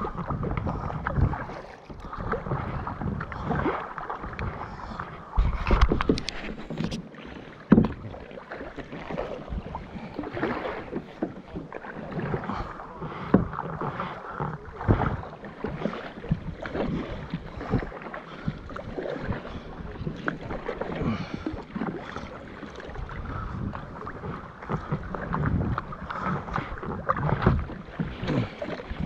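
Double-bladed kayak paddle strokes splashing and dripping in sea water, one surge after another, with wind buffeting the microphone. There are two louder thumps, one about six seconds in and one about eight.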